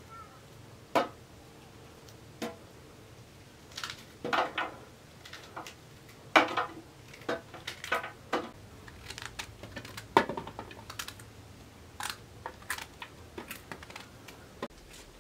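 Wild mushrooms being trimmed and peeled by hand with small knives, giving irregular clicks, snaps and short scrapes, a few sharper than the rest, as pieces fall into a perforated metal tray.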